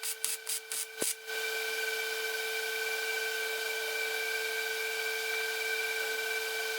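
Hand file rasping on metal in quick, even strokes, about three a second, stopping about a second in. A steady hiss with a constant hum underneath follows.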